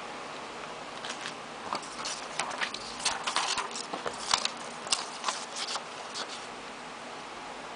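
A quick, irregular run of light clicks and taps lasting about five seconds, densest in the middle, over a steady hiss.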